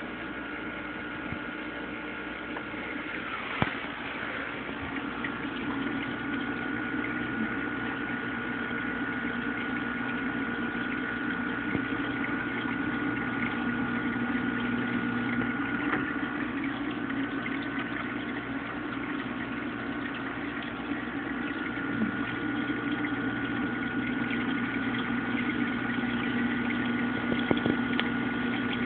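Aquarium filter pump running: a steady hum with a thin, high, constant whine, and a sharp click about four seconds in and another near the end.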